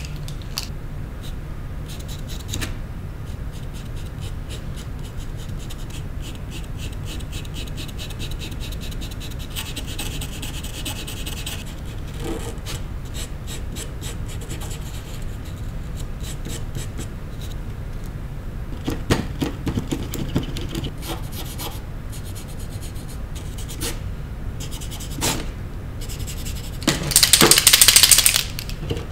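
Scratchy rubbing of paint strokes on a picture being coloured in, over a steady low hum. Near the end there is a louder rushing rustle that lasts about a second and a half.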